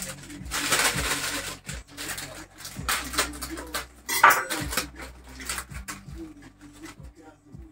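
A small plastic sachet being handled, crinkled and torn open by hand, with a louder rustle about a second in and a brief sharp noise about four seconds in.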